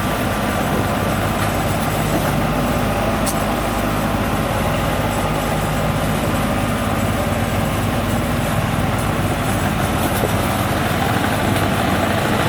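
Kubota WD102PRO combine harvester's diesel engine running steadily while it drives along a road, an even low engine drone with no change in speed.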